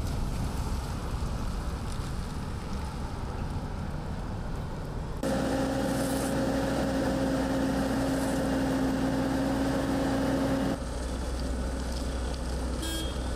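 Diesel road-building machinery running at a street repair site, including a Vögele Super 1300-2 asphalt paver. A low engine rumble carries throughout. About five seconds in, the sound switches to a steady, pitched machine hum from the paver, which cuts back to a plainer rumble near the end.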